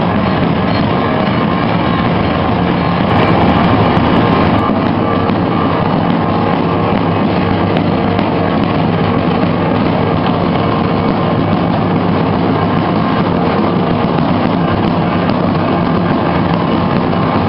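Procession drums played by uniformed drummers in a dense, continuous roll, loud and steady throughout.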